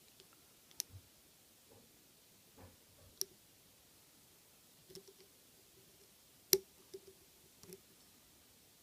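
Sparse, irregular small metallic clicks of a lock pick working the serrated and spool security pins of a Draper Expert 82 mm padlock under light tension. The loudest click comes about six and a half seconds in.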